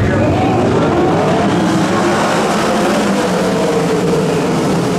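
A pack of 360 winged sprint cars racing past, their V8 engines running at high revs, with several engines overlapping and their pitches swinging up and down as the drivers work the throttle through the turn.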